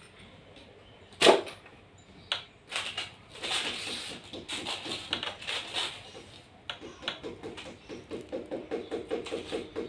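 A single loud, sharp knock about a second in, then scattered clicks and taps of handwork. From about seven seconds in, chickens cluck in a rapid, regular run.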